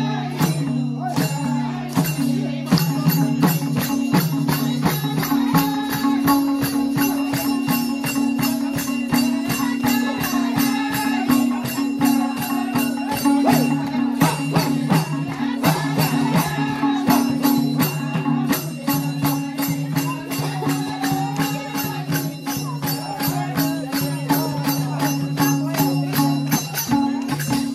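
Nepali folk music from a group in the street: a madal hand drum beating a steady, fast rhythm with hand clapping, voices singing, and a steady low drone underneath.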